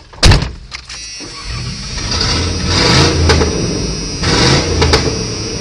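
A sharp knock about a quarter second in, then a vehicle engine revving loud, surging up twice. It sounds like the engine has lost its exhaust.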